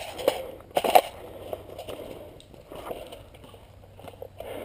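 Dry leaves and twigs crunching and rustling as a crouched player shifts position, with one louder scrape about a second in.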